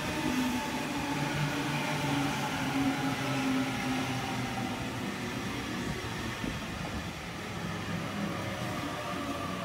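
Sydney Trains Waratah (A set) double-deck electric train running past the platform: a steady rumble of wheels on rail, with a traction-motor whine that slowly falls in pitch.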